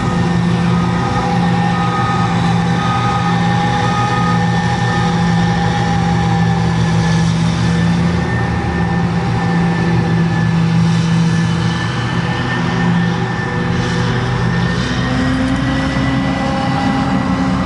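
Heavy farm machinery chopping maize: the diesel engines of a forage harvester and tractors running steadily under load, with a steady high whine over the engine hum. About fifteen seconds in, the low engine note shifts.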